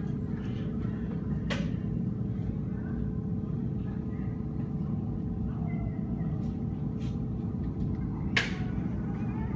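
Steady low hum of the blower fan that keeps an inflatable air track inflated. Two sharp knocks cut through it, one about a second and a half in and a louder one near the end.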